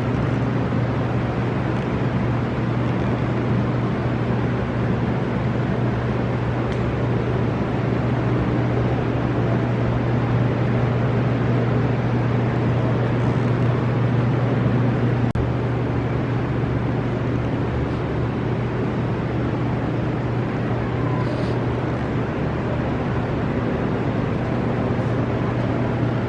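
A loud, steady low drone with an even hiss over it, unchanging throughout, like a running engine or machinery.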